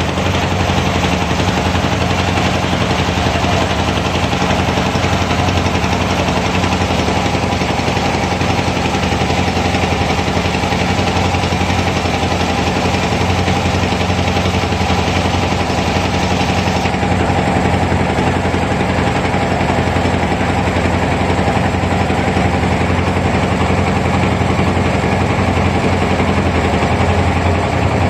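A wooden river boat's engine running steadily, with a rapid, even knocking beat that does not let up.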